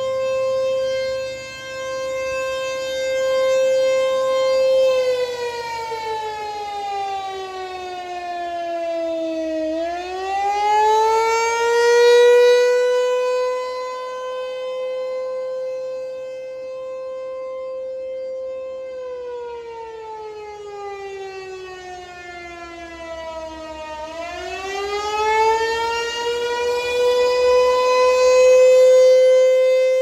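American Signal Corporation T-128 rotating outdoor warning siren sounding a test. It holds a steady tone, then winds down in pitch for about five seconds and climbs back up, twice over. The level swells and fades as the rotating horn sweeps toward and away from the listener.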